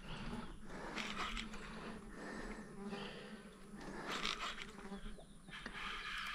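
A flying insect buzzing faintly, on and off.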